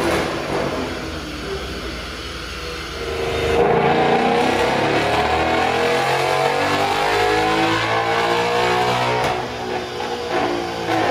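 Ford Mustang GT's 5.0-litre V8, with an X-pipe exhaust and cold-air intake, running; about three seconds in it revs up and runs loud for several seconds, then eases off near the end.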